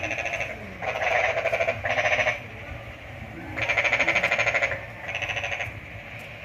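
An animal calling in five short bursts, each a fast pulsing trill about half a second to a second long, the longest near the middle.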